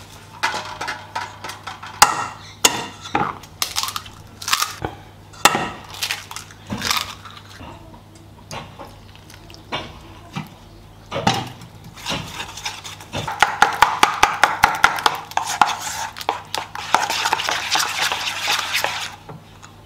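Batter being mixed in a stainless steel bowl: scattered knocks and clinks on the bowl, then from about twelve seconds in a fast, steady run of metal clinking as flour, eggs and water are stirred together. A steady low electrical hum runs underneath.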